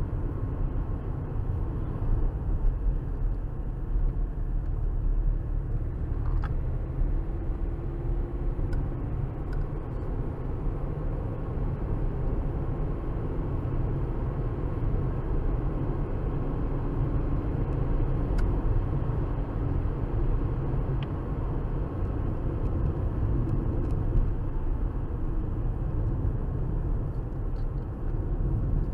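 Steady road noise of a moving car heard from inside the cabin: a low engine and tyre rumble, with a few faint ticks.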